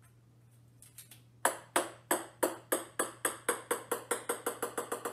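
A small ball bouncing on a wooden floor: sharp ticking bounces begin about a second and a half in, coming faster and faster and slowly getting quieter as the ball settles.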